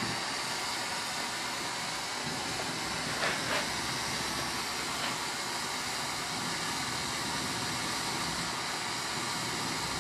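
Lampworking bench torch flame hissing steadily, with two light taps a little over three seconds in and a fainter one at about five seconds.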